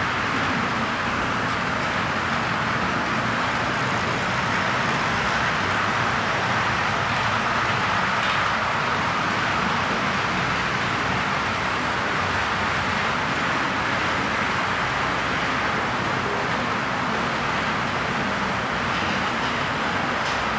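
Model trains running on a layout: a steady whirring hum of the small locomotive motors and wheels rolling on the track.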